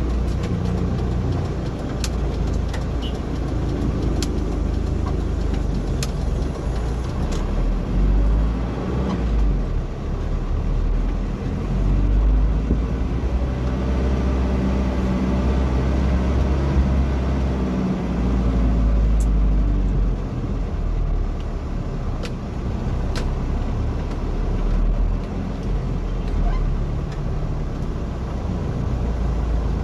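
Engine and road noise heard from inside a moving vehicle in city traffic: a steady low rumble, with the engine note coming up clearly in the middle.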